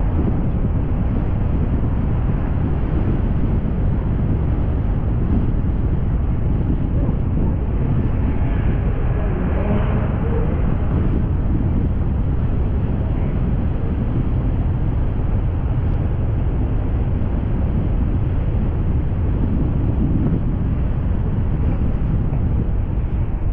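Heavy wind buffeting the microphone over a steady low rumble, with no let-up.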